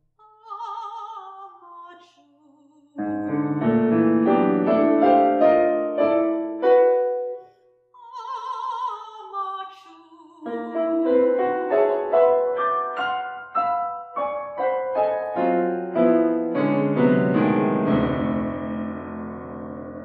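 Contemporary classical chamber music for soprano, violin, cello and piano: short wavering soprano phrases alternate with loud, dense piano chords, and the strings fill in the texture toward the end.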